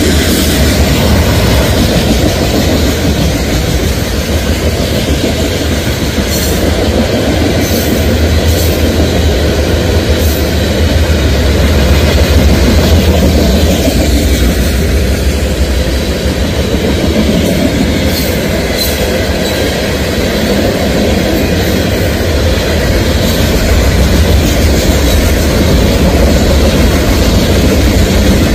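Freight train's open-top gravel hopper cars rolling past at speed: a steady, loud rumble of steel wheels on rail with rhythmic clickety-clack.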